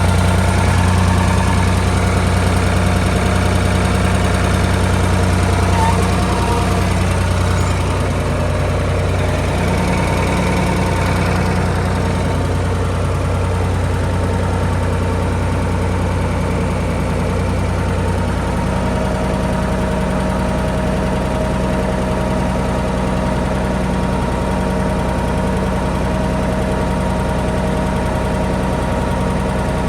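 Tractor engine running steadily, its tone changing about two-thirds of the way through.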